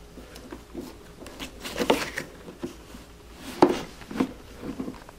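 Hard plastic tool case being handled by its handle and laid down flat: a few scattered knocks and clunks, the sharpest one about three and a half seconds in.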